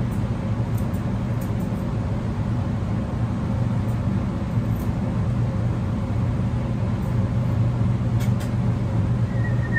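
Steady low machine hum of a mobile grooming van's running equipment, with a few faint snips of grooming scissors trimming a dog's face.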